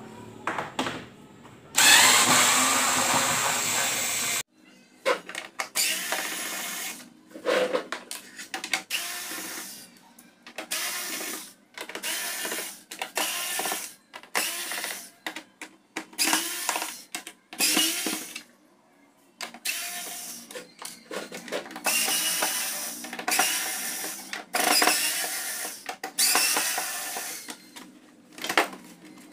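Cordless electric screwdriver running in repeated short bursts, each a second or less, as it backs screws out of a TV's plastic back cover. There is one longer, louder run about two seconds in.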